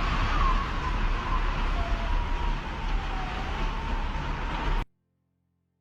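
Siren wailing faintly and fading over steady traffic and street noise, cutting off abruptly to silence about five seconds in.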